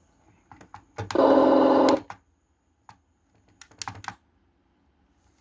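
Light clicks of the remote's buttons and switches being worked, and about a second in a loud electronic sound effect from the RC Freightliner semi's sound module, one steady pitched tone lasting about a second that cuts off sharply. More scattered clicks follow.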